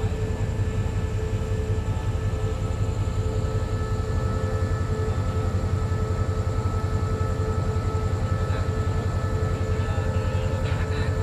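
Diesel train engine running steadily at idle: a low, rapid throb with a steady whine over it.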